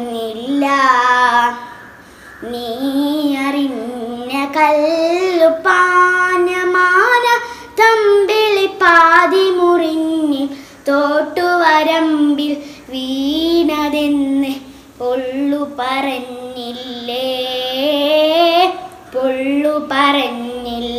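A young girl singing a Malayalam Mappila song solo with no accompaniment, in phrases of a few seconds with a wavering vibrato on the held notes and short breaths between the lines.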